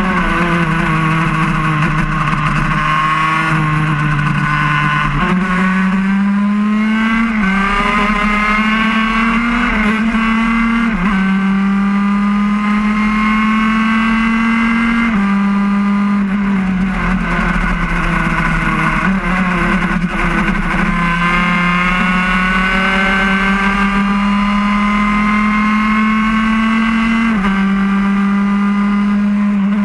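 Laydown road-racing kart's engine, recorded onboard, running hard at high revs. Its pitch climbs steadily and then drops abruptly several times over the stretch.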